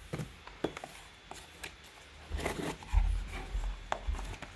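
A cardboard box being handled and opened, with a plastic-wrapped bipod pulled out of it: a few light knocks and clicks of cardboard, then rustling and a dull bump about three seconds in.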